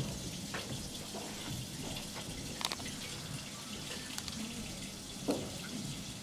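Steady room hiss with a few soft clicks and knocks from a calligraphy brush and tools being handled on a table. The sharpest click comes midway and a duller knock about a second before the end.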